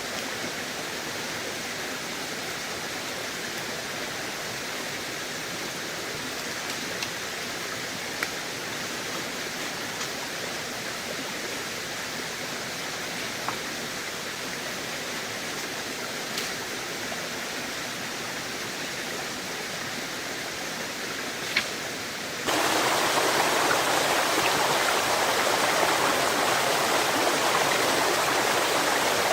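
Steady heavy rain hiss with a few scattered sharp drop ticks; about 22 seconds in it jumps suddenly to a louder, denser downpour.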